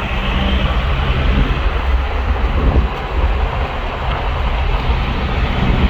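Nissan Navara D22's 3.0 L four-cylinder ZD30 turbodiesel running under way through a stainless straight-through exhaust, a steady, loud low drone with a brief dip about three seconds in.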